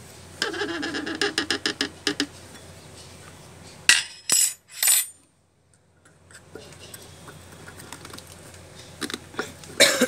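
Screwdriver clinking and scraping against the metal terminals of an electric water heater's thermostat and heating element, in short irregular clicks, with a few loud sharp scrapes about four seconds in. A pitched, warbling sound lasting about two seconds begins about half a second in.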